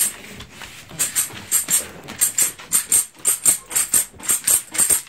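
Hand-held tambourine shaken in quick repeated strokes, its jingles rattling about three times a second, picking up about a second in.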